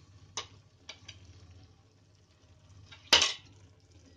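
Metal spoon knocking against a kadhai: a few light clinks in the first second, then one loud clank with a short ring about three seconds in, as it starts stirring the thick curry.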